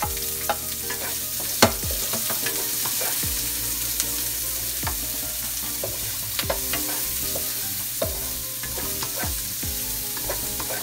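Diced pork and onions sizzling in rendered pork fat in a nonstick wok, stirred with a wooden spatula that knocks and scrapes against the pan every second or so. The sharpest knock comes about one and a half seconds in.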